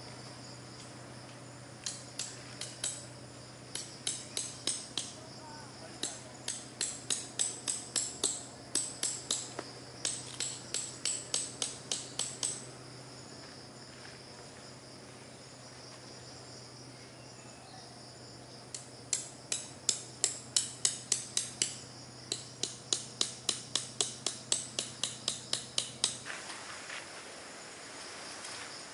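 Metal tent pegs being hammered into the ground: quick runs of ringing strikes, two or three a second. They come in two long spells with a pause between. A steady insect buzz runs underneath.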